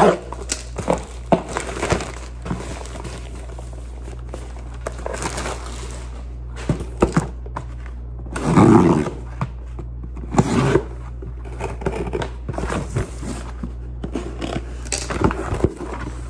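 Cardboard shipping box being handled and opened by hand: scattered rustles, scrapes and knocks of cardboard, loudest about halfway through, over a steady low hum.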